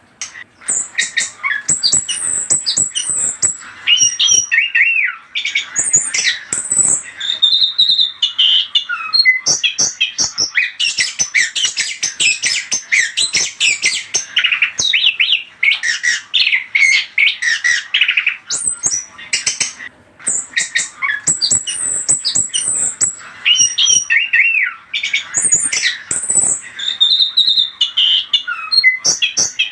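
Chestnut-capped thrush (anis kembang) singing a rapid, varied song of short chirps and whistles, almost without pause, with only brief breaks about a fifth and two-thirds of the way through.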